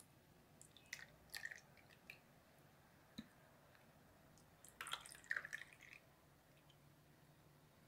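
Juice poured from a bottle into an ice-pop mold: faint trickling and splashing in two short spells, about a second in and again about five seconds in, as one cell and then the next is filled.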